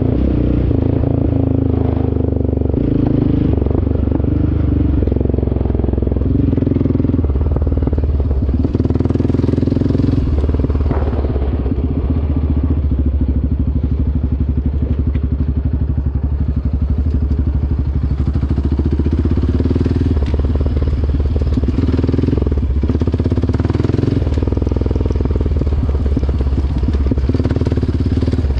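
ATV engine running under way on a dirt trail, its note shifting up and down every few seconds as the throttle changes.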